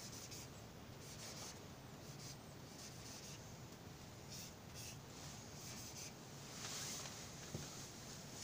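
Graffiti marker tip rubbing across a panel in a series of short, faint writing strokes as a tag is drawn.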